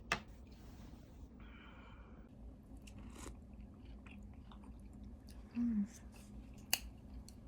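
Quiet chewing while eating a breakfast, with a few small clicks of chopsticks or dishes, one sharp click about two-thirds of the way in, and a brief hum of the mouth a little earlier.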